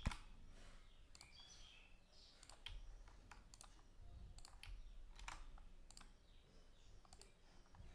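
Faint, scattered clicks of a computer mouse and keyboard over near-silent room tone, with a sharper click at the very start.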